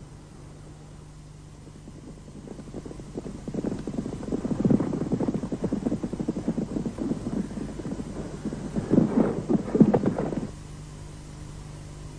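Horses galloping, a rapid irregular drumming of hooves that builds over the first few seconds and cuts off abruptly a couple of seconds before the end.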